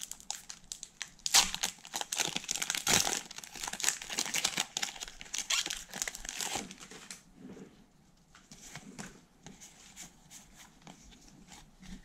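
Foil booster-pack wrapper of trading cards being torn open and crinkled by hand: dense crackling for about seven seconds, then quieter, with a few faint rustles as the cards are slid out.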